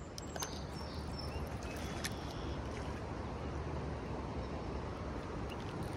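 Steady rush of river rapids, with a few faint clicks in the first two seconds.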